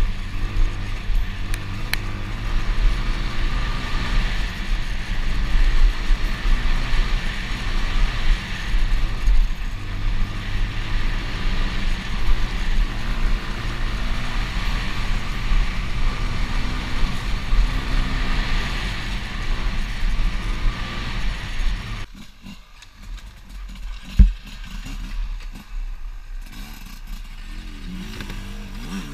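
Dirt bike engine running hard along a trail, with wind rumbling on the helmet microphone. About three-quarters of the way through the sound drops suddenly to a much quieter engine, with a single sharp knock shortly after.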